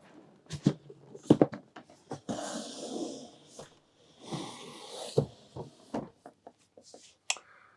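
Handling of a cardboard board game box and its contents: short knocks and taps, with two sliding, rustling swishes of about a second each as the lid and packed cards are moved.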